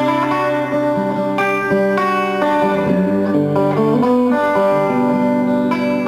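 Guitar music: plucked notes ringing on and changing every second or so, with no singing.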